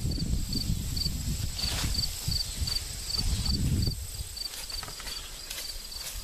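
A cricket chirping steadily, about two to three short high chirps a second. For the first four seconds a low rumbling noise lies under the chirps, then it drops away.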